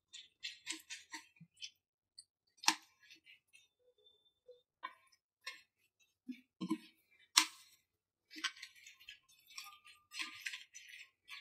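Spatula tossing and stirring noodles and vegetables in a pan: scattered soft clicks and taps, with two sharper knocks against the pan, about three seconds in and again about seven seconds in.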